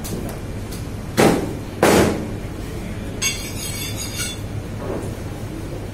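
Butchering work on a meat-cutting table: two loud knocks well under a second apart, then about a second of high scraping rustle, with a few lighter knocks after.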